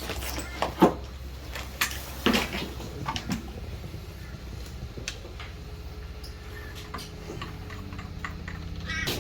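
Scattered knocks and clicks of work sounds, the loudest in the first three seconds, over a low steady hum.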